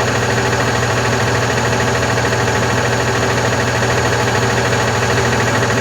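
Volkswagen Constellation 19.320 truck's diesel engine idling steadily. It carries the knocking noise being chased on this truck, which the mechanic says could be play in the camshaft timing gears driving the front gear train.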